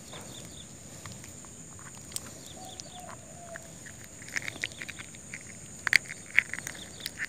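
Faint handling sounds of a caught snakehead fish being gripped in the hand: soft rustling, then a run of small clicks and knocks from about four seconds in, the loudest near six seconds.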